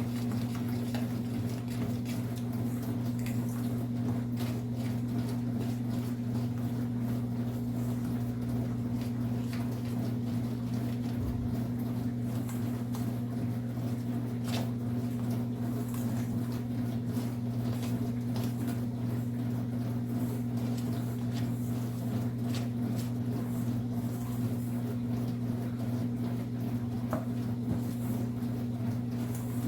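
A running kitchen appliance hums steadily at a low pitch, with a few faint clicks over it.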